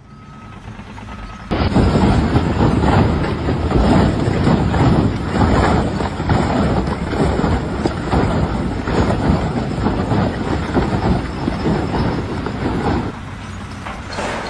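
Loud, rough mechanical rattling and rumbling that starts suddenly about a second and a half in and eases off near the end.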